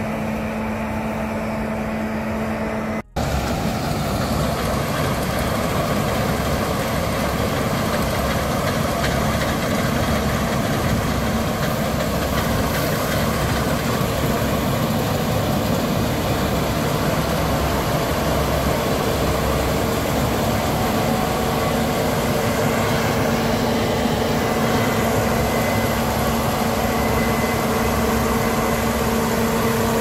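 Case IH Axial-Flow 8240 combine harvester running under load while cutting barley: its engine and threshing machinery make a steady drone with a hum. The sound cuts out for an instant about three seconds in, then carries on louder and fuller.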